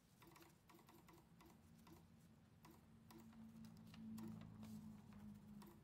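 Near silence: faint scattered ticks and a faint low hum that grows a little louder in the second half.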